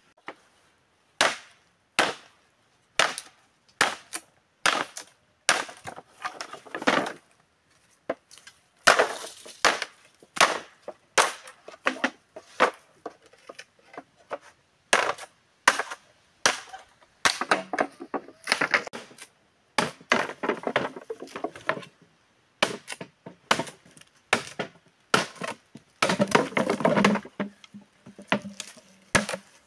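Machete chopping bamboo: a long run of sharp hacks at an irregular pace, about one to three a second, with some longer stretches of rustling and splintering between strokes, most of all near the end.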